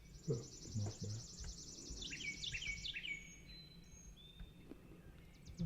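Songbirds singing: a fast, high trill lasting about three seconds, with several short down-slurred notes near its end, and another trill starting near the end.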